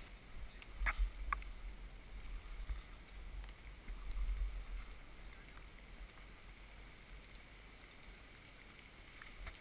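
Low rumble of wind and handling noise on a body-worn action camera as the wearer moves through dry leaf litter, swelling a couple of times, with two sharp clicks about a second in.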